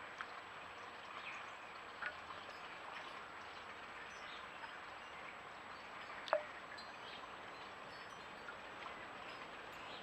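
Water in a garden bird bath stirred by a blackbird standing in it: a few small, sharp water plinks, the loudest about six seconds in, over a faint steady hiss.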